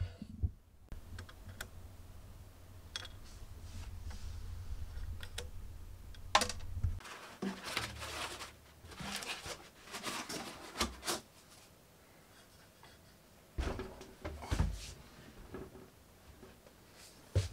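Packing foam being pulled out of a 3D printer's frame: irregular scraping rubs, squeaks and light knocks of foam against the plastic and metal, busiest from about six to eleven seconds in and again near the end.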